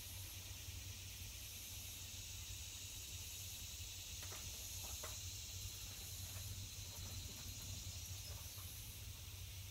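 Steady high-pitched insect chorus, with a low steady hum underneath and a few faint clicks about four to five seconds in.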